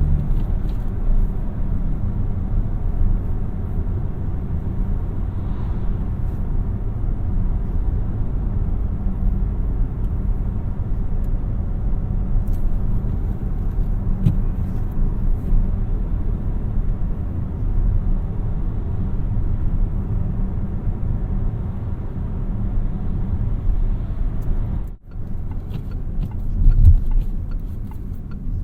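A 2017 Peugeot 3008's 1.2 PureTech 130 three-cylinder engine and tyres give a steady low rumble as the car drives. Near the end the sound drops out for a moment, then a short louder bump follows.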